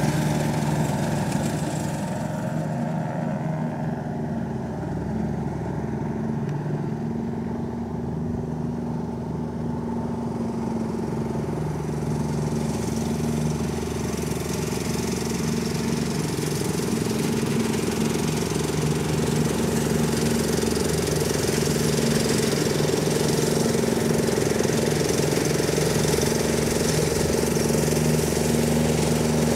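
John Deere D120 riding lawn mower running steadily as it mows grass. Its engine is fainter for the first several seconds and grows louder as it comes closer.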